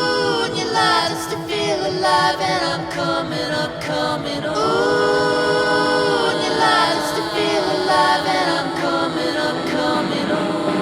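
Vocal music: singing voices holding long, sliding notes.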